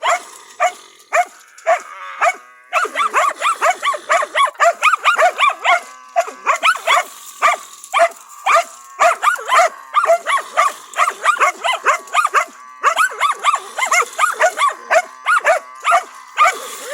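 Karelo-Finnish Laika barking at a cornered raccoon dog, a fast, almost unbroken string of high barks several a second, with short pauses about two seconds in and again past the middle.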